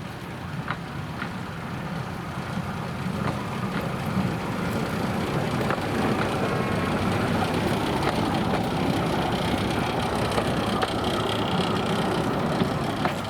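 Small diesel locomotive of a narrow-gauge forest railway running, its engine growing louder over the first six seconds and then holding steady.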